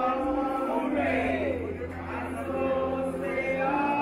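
A woman singing into a microphone, with a group of voices singing along on long held notes.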